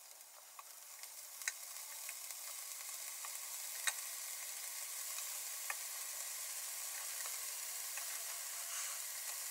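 Kielbasa slices and hot dogs sizzling on an electric grill, the sizzle growing louder over the first few seconds as the slices are turned, then steady. A few sharp clicks of the metal fork against the grill plate.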